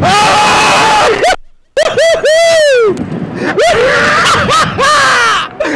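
Two men screaming and laughing on a slingshot thrill ride, long loud screams breaking into laughter. The sound cuts out briefly about a second and a half in.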